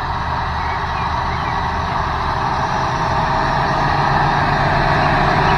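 Large John Deere farm tractor's diesel engine running steadily as it pulls a planter across a field, growing slightly louder toward the end.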